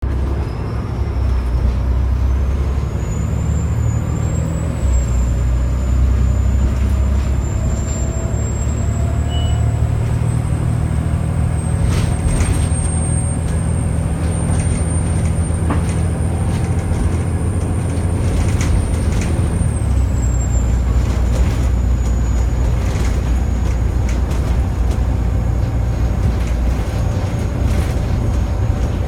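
Bus diesel engine running under way with a high-pitched turbocharger whine over a steady low engine drone. The whine climbs over the first few seconds, holds high, then drops about twenty seconds in and carries on at a lower pitch.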